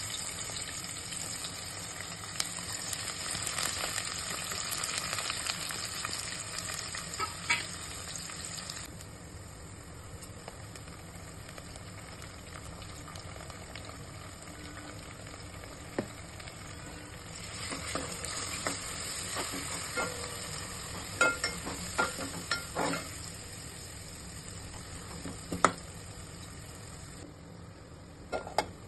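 Sliced onions sizzling as they fry in hot oil in an aluminium pot, loudest for the first nine seconds, then settling to a quieter sizzle. In the second half, stirring adds sharp clicks and knocks against the pot.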